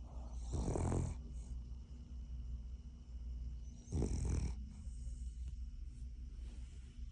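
A Cavalier King Charles Spaniel snoring in its sleep, two loud snores about three and a half seconds apart.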